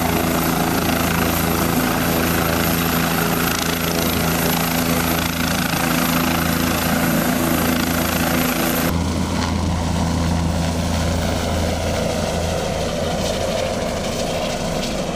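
Light helicopter running steadily with its rotor turning: a continuous, even engine-and-rotor sound with a steady low hum. About nine seconds in, the sound abruptly turns duller.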